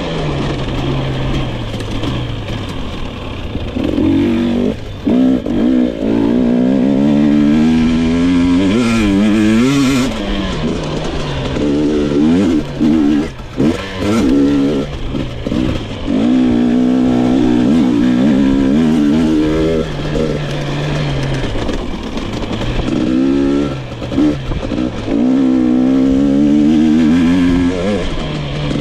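GasGas EX 250 two-stroke dirt bike engine revving up and down as it is ridden, its pitch repeatedly climbing and falling. The sound dips briefly several times where the throttle is let off.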